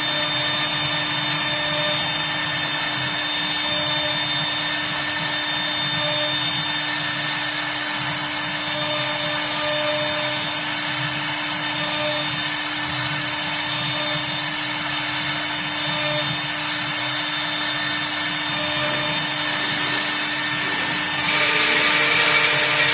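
HSD spindle on a CNC router running at a steady speed, a constant whine with a hiss of air and machining noise. It gets louder and rougher near the end.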